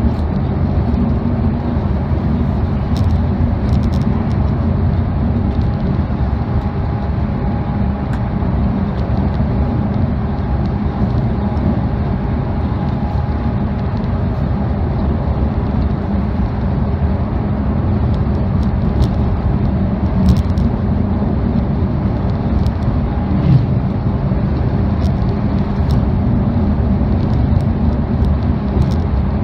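Passenger train running at speed, heard from inside the carriage: a steady low rumble of wheels on rail and running gear, with a faint hum that comes and goes and scattered light clicks.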